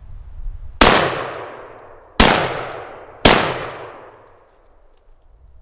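Three shots from a Panzer AR-12 gas-operated semi-automatic 12-gauge shotgun, the first about a second in and the others about a second to a second and a half apart. Each blast rings out and fades slowly.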